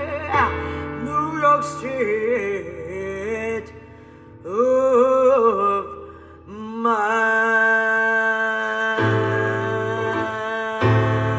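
Recorded vocal music played back through a vintage Quad 606 transistor amplifier and Magnavox loudspeakers: a singer with wide vibrato over piano, giving way about seven seconds in to a long sustained chord, with bass coming in near the end.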